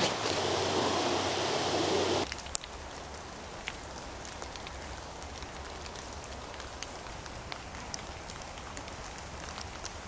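Footsteps crunching on a gravel path for about the first two seconds, then an abrupt cut to quiet, wet woodland: a faint steady hiss with scattered light drips.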